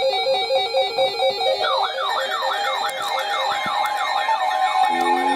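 Electronic background music with a fast, repeating synth-note pattern. About a second and a half in it is joined by siren-like swooping tones, about three a second, and near the end by slowly rising lower tones.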